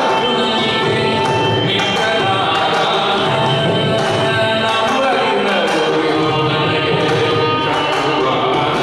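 Live Carnatic music: a male voice singing a gliding melody with violin and mridangam accompaniment, the drum strokes steady underneath.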